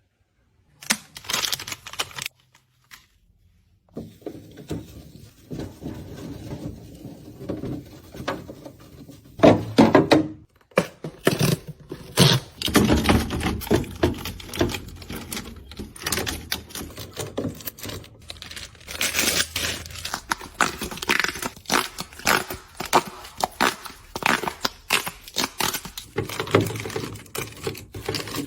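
Plastic snack packaging crinkling and rustling as packets are handled, with frequent sharp taps and knocks of items being set down. It starts in short bursts and becomes continuous about four seconds in.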